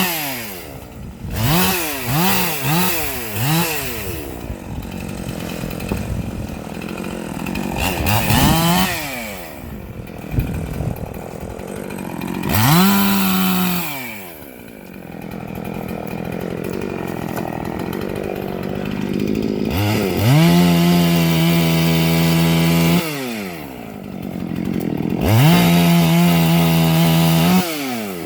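Husqvarna two-stroke gas chainsaw revving: a few quick throttle blips near the start, a single rev about halfway, then held at full throttle for about three seconds twice near the end, dropping back to idle in between.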